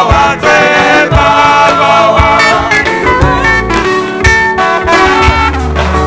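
Church choir singing a Yoruba hymn with saxophone accompaniment over a steady drum beat and bass.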